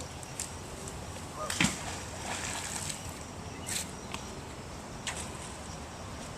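A fishing magnet on a rope splashing into river water about one and a half seconds in, followed by water sloshing and a smaller, sharper splash a couple of seconds later.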